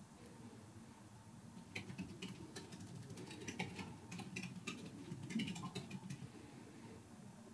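Irregular light clicks and taps, several a second, starting about two seconds in and stopping about six seconds in, over a low steady hum.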